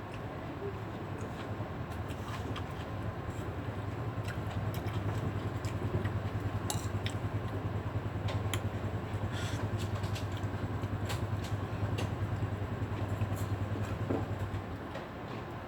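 A small engine running steadily, with scattered light clicks over it; the engine stops shortly before the end.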